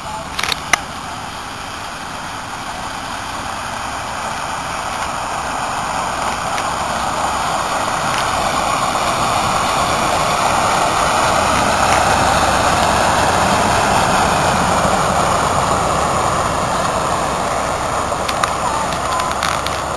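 A road vehicle approaching and passing, a rushing noise that swells slowly to its loudest about twelve seconds in and then fades. A couple of short clicks sound just after the start.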